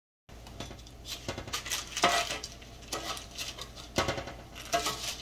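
Metal kitchen tongs clinking and scraping against a metal sheet pan as sausages are set down on it: a quick, irregular run of sharp metallic clinks that starts abruptly.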